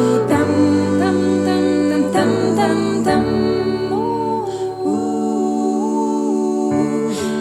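Small vocal ensemble singing a cappella in close harmony: held chords that shift every second or so, with a higher melodic line rising and falling above them.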